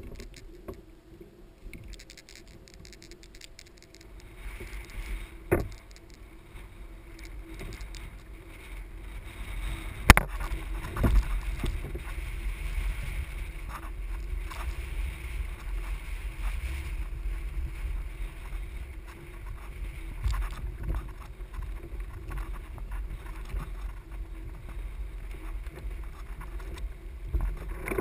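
Wind rumbling on the microphone and water sloshing around a kayak on choppy sea, the rumble building a few seconds in, with a few sharp knocks, the loudest about ten seconds in.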